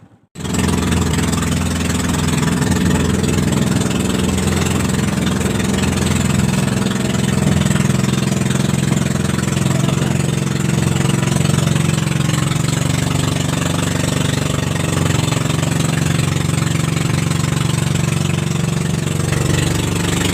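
Small outrigger boat's engine running steadily under way, a constant drone that cuts in abruptly a moment after the start.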